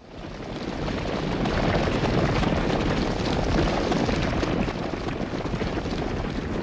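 Sound effect of a cavalry charge: a dense rumbling roar of many galloping horses that swells over the first second or so and then holds steady.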